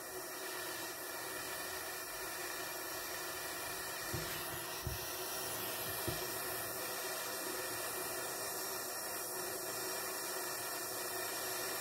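Steady hiss of a small gas soldering torch's blue flame, playing on a silver ring's shank to flow solder into it. There are a few faint light knocks around the middle.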